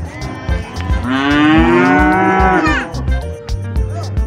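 A cow mooing once: one long call of nearly two seconds, starting about a second in.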